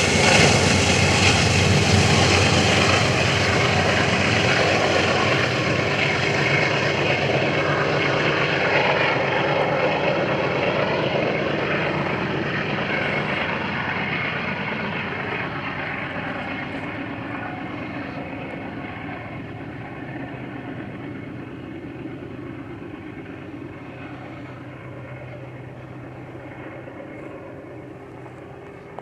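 Freight train rolling by and moving away, its rumble loud at first and fading steadily.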